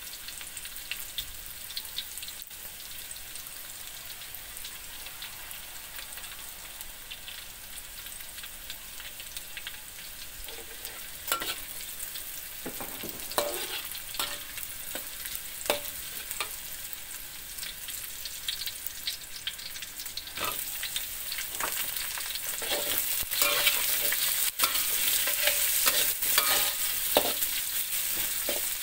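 Chopped chillies, shallots and garlic sizzling steadily in hot oil in a wok, with a metal spatula scraping and knocking against the wok as the mix is stirred, the strokes starting about a third of the way in. The sizzle gets louder in the last third, by which point carrot and cucumber strips are in the pan.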